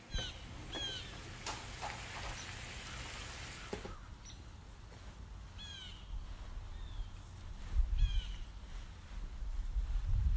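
A bird calling repeatedly with short downward-sliding calls, over a low steady hum. A brief hiss and a few clinks of the pan lid and utensils come about one to four seconds in.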